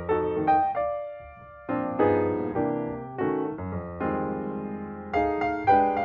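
Background piano music: single struck notes and chords, each ringing and fading, with a short lull a little after the first second.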